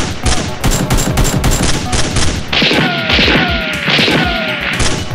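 Rapid gunfire sound effects: a dense, continuous fusillade of shots, with a few descending whistles about halfway through.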